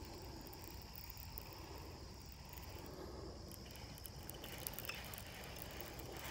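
Insects trilling steadily in one high, thin tone over faint low background noise; the trill fades about two-thirds of the way through, and a few light clicks come near the end.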